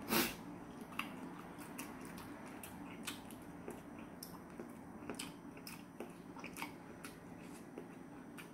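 Close-up mouth sounds of a person chewing soft fish cake (eomuk): small wet clicks and smacks scattered throughout, after one brief louder noise right at the start.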